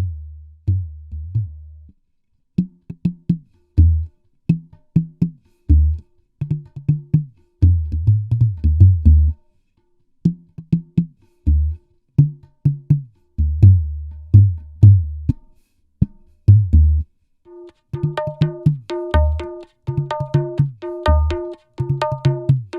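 Dangdut koplo drum patterns, kendang-style strokes with very deep, bass-heavy hits broken by short silent gaps between phrases. About three-quarters of the way in, a held melodic tone joins over the drumming.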